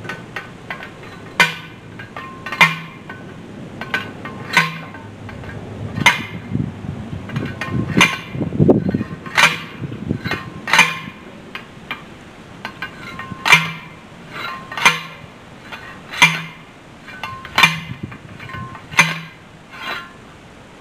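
Manual post driver pounding a steel T-post into the ground: a metallic clank with a short ring at each blow, about fourteen blows at roughly one every second or so, with a longer pause a little past halfway.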